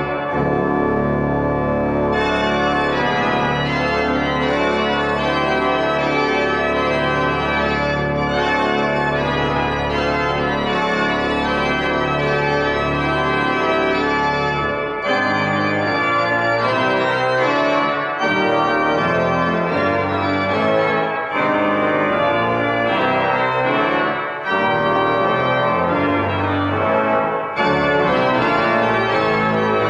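Pipe organ playing full sustained chords, with a low bass note held for about the first half and shorter, moving bass notes after that.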